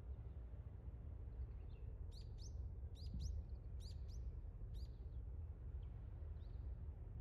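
A small bird calling: a run of about six sharp, rising chirps between about two and five seconds in, with fainter calls near the end. Under it is a steady low rumble.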